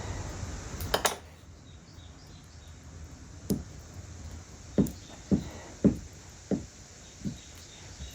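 A series of short, dull knocks on wood, about six at uneven intervals, with a couple of sharper clicks before them. These come from working a small loose piece of crotch mahogany veneer back into place on the hide-glued panel.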